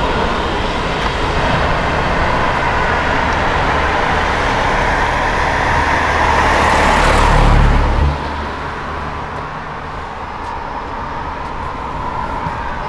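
A motor vehicle passing on the road close by, its noise building to a peak a little past halfway and then dropping away abruptly, leaving quieter traffic noise.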